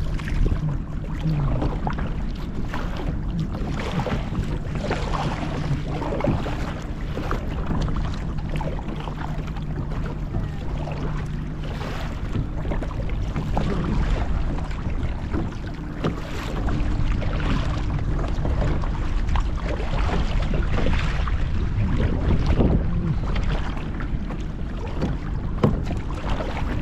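Kayak paddle strokes splashing and dripping in the water, with wind buffeting the microphone. A faint steady low hum runs underneath.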